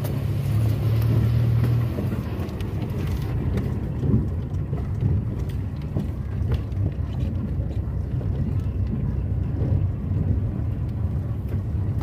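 Car driving on a rough dirt road, heard from inside the cabin: a steady low engine and road rumble with scattered knocks and rattles from bumps. A higher rushing hiss fades about three seconds in.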